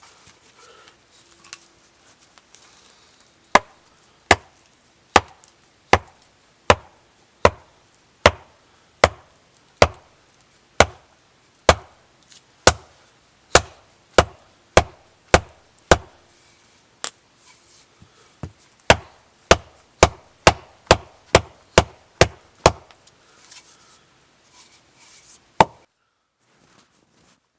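A tool chopping into wood in steady, sharp blows, about one a second at first, quickening to about two a second, with one last blow near the end.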